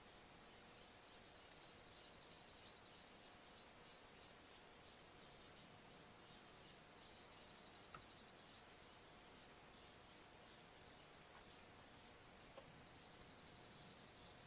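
High-pitched insect chirring: a dense, rapid pulsing chirr broken by brief gaps every second or so, over a faint steady hum.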